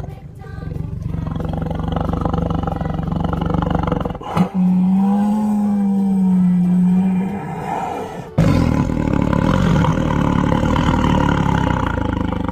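Tiger roaring and growling in three long stretches of a few seconds each. The first and last are rough and noisy; the middle one is a single low, held, steady roar. Each stretch starts or stops abruptly.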